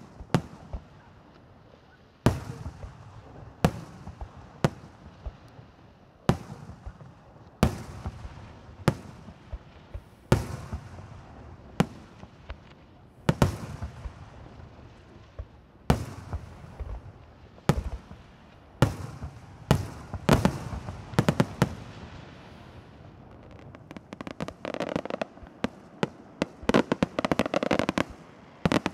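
Aerial firework shells bursting one after another, a sharp bang every second or so, each trailing off in an echo. In the last few seconds the bangs give way to dense, rapid crackling.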